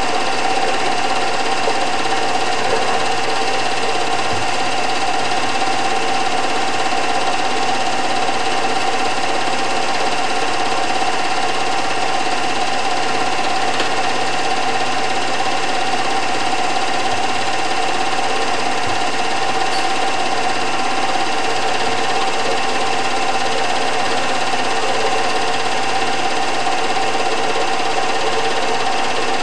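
Film projector running: a steady mechanical whir and clatter from the motor and film-advance mechanism.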